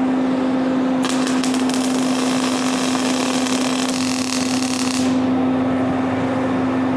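MIG welding arc from an ESAB Migmaster 250 crackling and hissing as a bead is run on a steel chain hook. It starts about a second in and stops after about four seconds. A steady low hum runs underneath.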